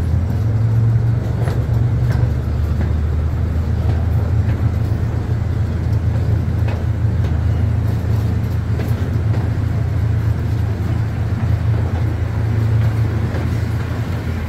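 Amusement-park ride train running steadily through a covered wooden tunnel: a constant low rumble, with a few faint clicks now and then.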